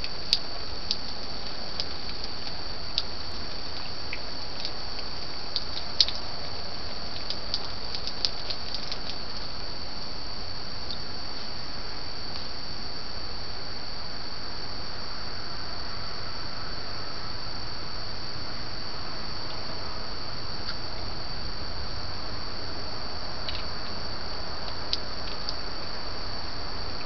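Steady high-pitched chirring of night insects over an even hiss, with scattered small clicks and taps from a raccoon handling a plastic hummingbird feeder, mostly in the first nine seconds and again near the end.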